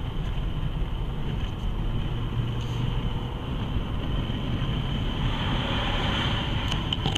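Road noise inside a moving car's cabin: a steady low rumble of engine and tyres with a hiss of wind, as the car drives behind and then overtakes a lorry.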